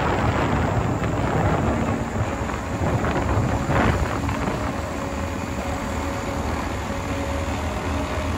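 Wind rumbling and buffeting on the microphone over the steady hum of a moving vehicle's engine, with a louder gust about four seconds in.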